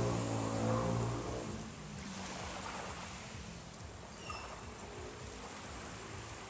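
An engine's steady hum, loudest at the start, fades away within the first two seconds, leaving a steady wash of wind and gentle surf.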